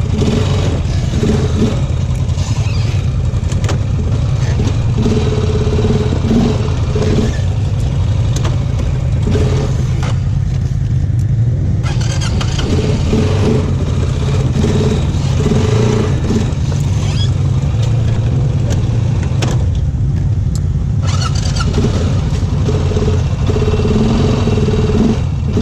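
Off-road vehicle engine running steadily on a trail ride, with the throttle varying. Its sound thins out twice for a second or two before picking up again.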